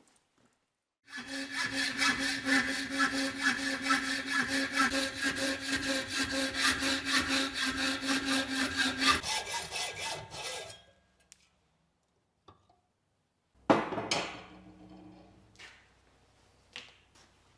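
A power tool runs with a steady motor hum and a fast, even rhythm of cutting strokes for about nine seconds. It is then switched off, and the strokes fade out as it spins down. A few seconds later comes a single sharp knock with a short ring, followed by a few light clicks.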